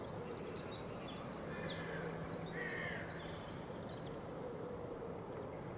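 Dawn chorus of songbirds: many quick high chirps and trills overlapping, thickest in the first couple of seconds and thinning after, over a faint steady low hum.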